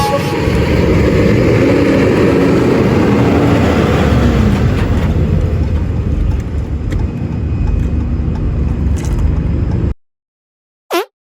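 Loud, steady vehicle noise that cuts off abruptly about ten seconds in. After a pause, one short swoosh falls quickly from high to low pitch.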